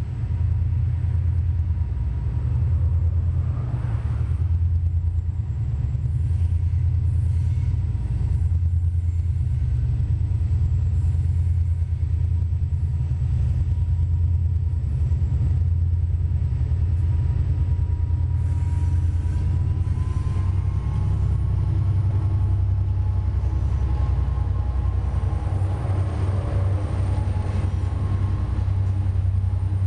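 Freight train wagons rolling past close by: a steady low rumble of wheels on the rails, while a second diesel-hauled freight train draws near on the adjacent track in the last seconds.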